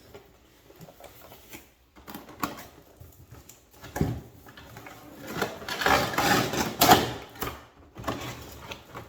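A cardboard product box being handled and opened: scattered clicks and knocks, then a louder stretch of rustling and scraping packaging about two-thirds of the way through.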